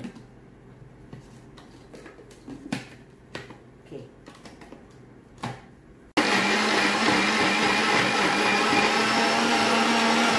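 Electric countertop blender switching on abruptly about six seconds in and running with a steady whir, grinding onion, garlic, chillies and fried shallots into a paste. Before it starts, a few soft knocks and clicks as the lid is pressed on and the jar handled.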